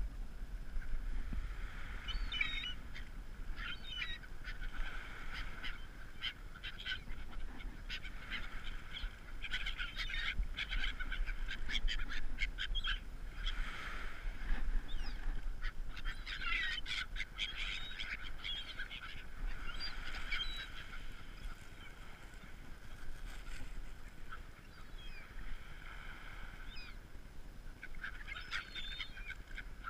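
A flock of gulls calling over one another in short, harsh, overlapping calls. The calling is busiest through the middle and thins out for a few seconds near the end.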